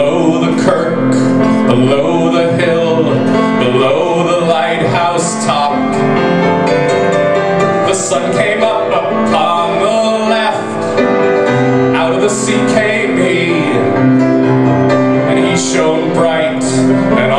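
A man singing a slow song to his own piano accompaniment, his voice wavering over sustained piano chords.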